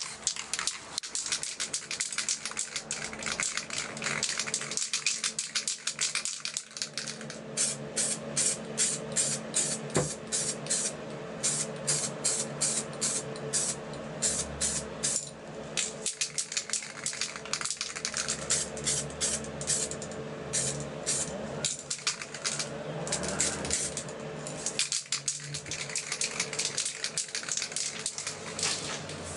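Aerosol spray paint can hissing in many short bursts, at times about two a second, with music playing steadily underneath.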